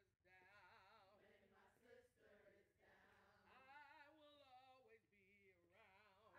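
Faint singing voice chanting a song in short phrases, its pitch wavering with a marked shake and broken by brief pauses.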